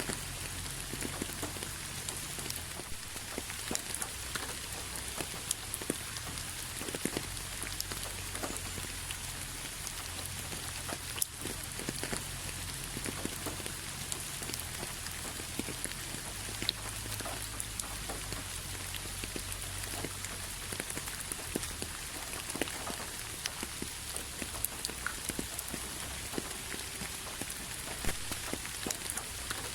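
Steady rain falling, an even hiss with many separate drops landing sharply here and there, over a low rumble.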